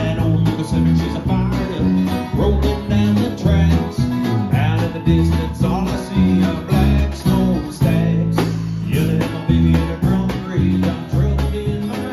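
Live band playing a country-style song: acoustic guitar strumming, with electric keyboard, bass guitar and drums, and a man singing.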